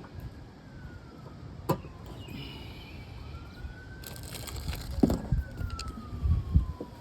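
A siren wailing slowly, rising and falling in pitch twice, over a low outdoor rumble. It is broken by a few sharp clicks and knocks, the loudest about a second and a half in and about five seconds in.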